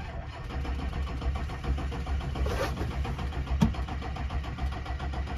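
Chevrolet Duramax diesel V8 being cranked over by its starter in an even, pulsing rhythm without firing, on a weak battery after air was bled from the fuel filter. A sharp click is heard about midway.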